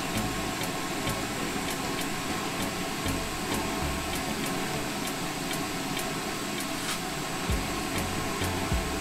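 Glassblowing bench torch flame running with a steady hiss as glass tubing is heated in it, with a low rumble that comes and goes. A faint regular ticking, a couple of ticks a second, runs through it.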